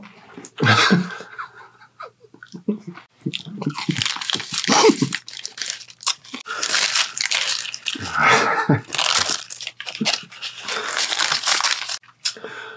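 Paper sandwich wrapper crinkling and rustling close to the microphone as a sub sandwich is unwrapped, in long irregular stretches with short pauses.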